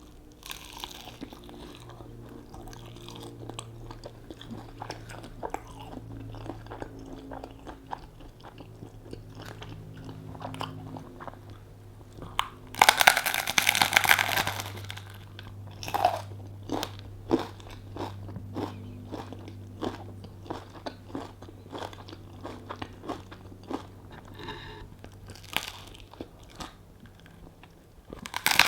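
Close-miked eating of crunchy food: a loud, crunching bite a little under halfway through, followed by chewing with many sharp crunches. Quieter small crunches and clicks come before the bite.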